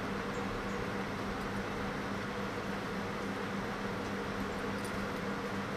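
Steady room noise: an even hiss with a constant low hum.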